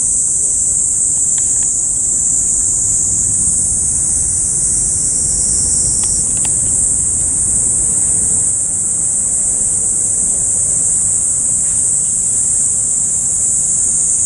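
A chorus of insects shrilling steadily in one continuous high-pitched drone, over a low rumble of background noise, with a couple of faint clicks.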